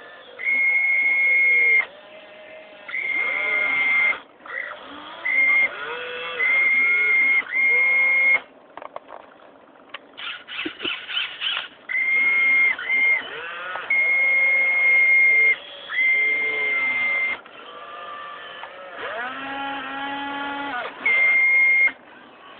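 Electric motors of a radio-controlled excavator whining in repeated bursts of one to two seconds, starting and stopping as its functions are worked. A high steady whine runs alongside lower tones that slide up and down in pitch.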